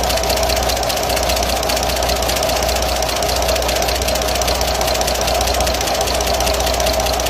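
Isuzu E120 diesel engine running steadily with its rocker cover off, the exposed valve train giving a rapid, even ticking. Its valve clearances keep drifting after adjustment, which is traced to worn cam lobes and tappets.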